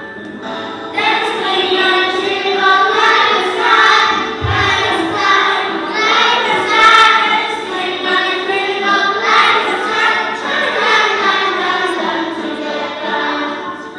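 Young children singing a song together as a choir over a musical accompaniment, with the voices coming in strongly about a second in.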